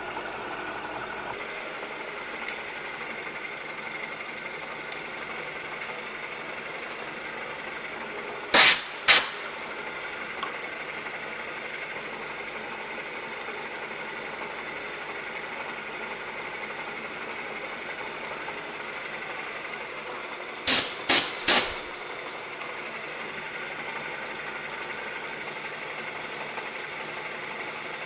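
Bridgeport milling machine running a half-inch two-flute end mill through a keyway cut in a shaft: a steady spindle and cutting noise. Sharp knocks stand out over it, twice a little before the middle and three times in quick succession later on.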